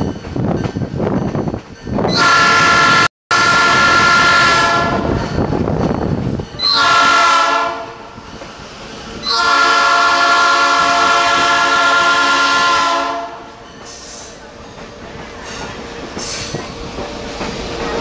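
Diesel locomotive's multi-tone air horn at the head of the train, heard from an open-sided passenger coach: a long blast, a short one, then a longer one. Under and around it, the coach's wheels rumble and clatter on the rails, loudest in the first two seconds.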